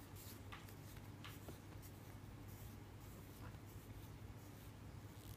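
Near silence: a few faint, light ticks and rustles of a fountain pen being turned in the fingers, over a low steady hum.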